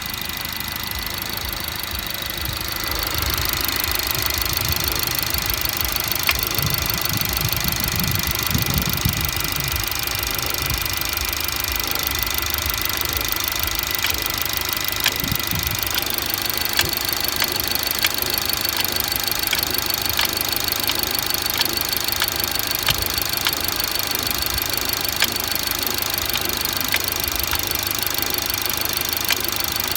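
BMW B48B20 turbocharged four-cylinder engine running cold, with sharp mechanical ticks at irregular, random intervals over the steady engine sound. This is the cold-engine noise the owner is trying to trace: it goes away once the engine is warm, and diagnostics show no faults. The engine gets louder about three seconds in.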